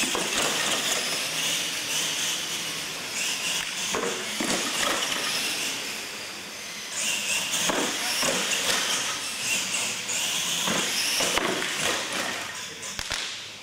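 Radio-controlled monster trucks racing on a concrete floor: a steady high whir of motors, gears and tyres, broken by several sharp knocks as they hit and land off the ramps.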